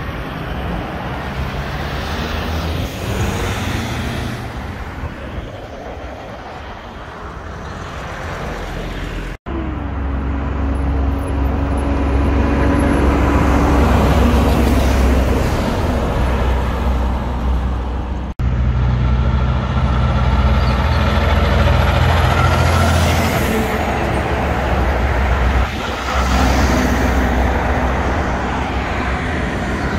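Diesel road trains driving past close by, one after another: a heavy, steady engine drone with tyre and road noise. The sound cuts off abruptly and starts again twice, about a third and two thirds of the way through, as one truck's pass gives way to the next.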